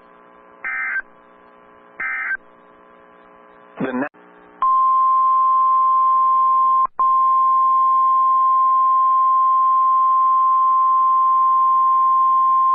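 NOAA Weather Radio alert signals opening a severe thunderstorm warning. First come the last two of the three short SAME digital header bursts, about a second and a half apart, and a brief burst of noise near four seconds. Then the 1050 Hz warning alarm tone starts about four and a half seconds in: a single steady high tone with one brief dropout. A faint hum from the receiver sits beneath it all.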